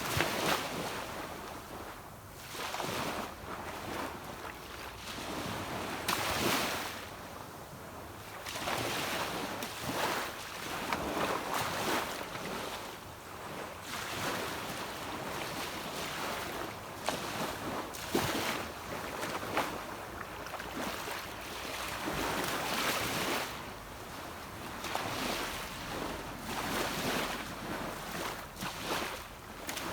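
Sea waves washing onto a beach, the rush of surf swelling and falling away every few seconds.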